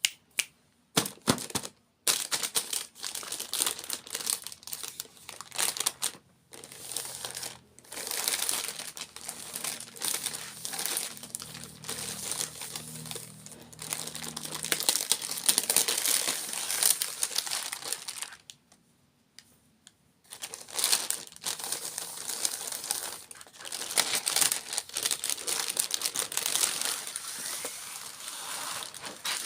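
Close-up crinkling and rustling of snack or candy packaging being handled, in bursts with a brief pause about two-thirds of the way through.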